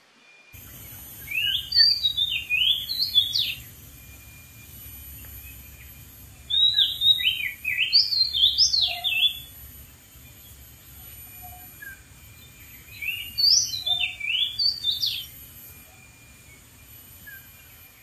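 Oriental magpie-robin singing three bursts of rapid, varied whistled notes, each two to three seconds long, with pauses of a few seconds between them. A faint steady high hiss runs underneath.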